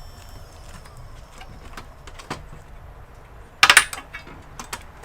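Small hard parts being handled at a workbench: scattered light clicks, then a loud burst of rattling clicks about three and a half seconds in and a few sharper clicks near the end.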